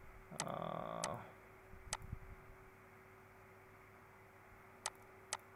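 Five sharp computer mouse clicks: two in the first second, one near two seconds, and a close pair near the end. A brief hummed voice sound overlaps the first two clicks, and a faint steady electrical hum runs underneath.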